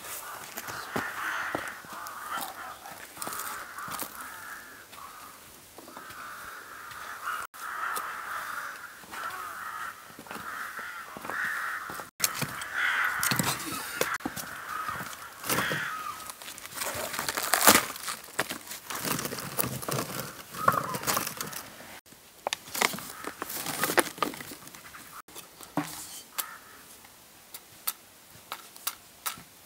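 Birds calling over and over with harsh cries through the first half, then short knocks, clatters and crackles as wood and kindling are handled and laid in a brick fire pit.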